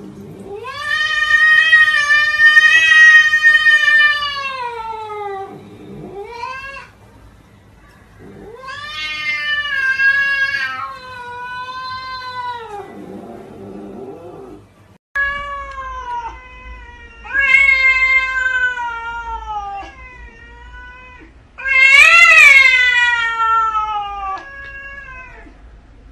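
Cats yowling: a series of long, drawn-out meows, each several seconds long, that swell and then slide down in pitch, with short gaps between them. A lower, rougher sound comes just before a sudden cut about halfway through, after which more long yowls follow.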